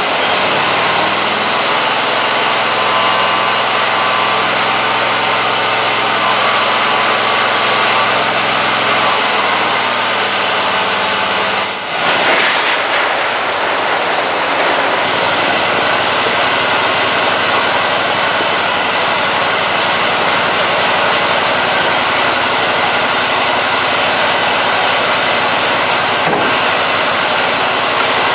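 Scag Tiger Cub zero-turn mower engine running steadily just after a cold start in a freezing shop, having sat unused for a month. About twelve seconds in the sound breaks off briefly and a steady engine drone carries on.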